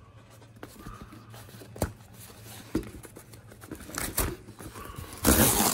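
Cardboard mailer being opened by hand: scattered small rustles and taps of tape and card, then a loud rip of cardboard or packing tape, about half a second long, near the end.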